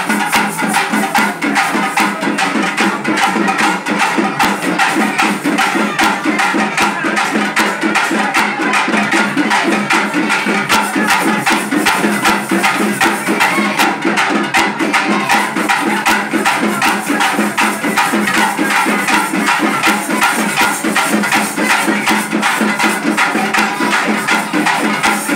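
Loud dance music with a steady, busy percussion beat, thin in the bass.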